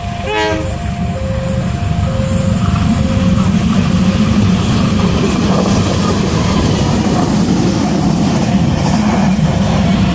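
Railway level-crossing alarm sounding two alternating tones at a fast tempo while a diesel locomotive passes close by. The locomotive's engine and wheel rumble build up and partly cover the alarm. A brief falling chirp comes about half a second in.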